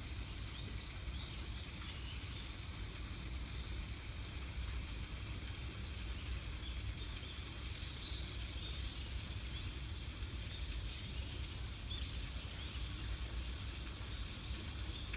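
Outdoor ambience: a steady low rumble with faint bird chirps scattered throughout.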